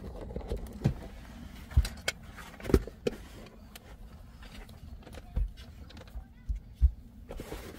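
Handling noises as objects are moved about and set down: about half a dozen dull thumps and knocks at uneven intervals, with light rustling in between.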